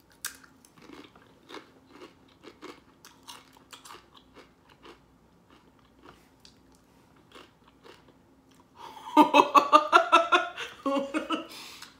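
A person biting and chewing a crunchy Flamin' Hot Nacho Doritos tortilla chip, with many small, sharp crunches. About nine seconds in, a woman bursts into loud laughter.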